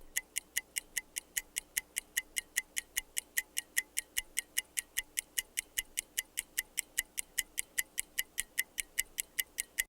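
Microwave oven's dial timer ticking steadily, about five ticks a second, over a faint steady hum as the oven runs.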